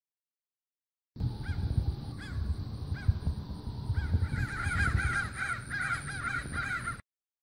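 Short repeated bird calls over a low rumble, starting about a second in: first a few single calls spaced out, then from about the middle a quick run of them, about three a second.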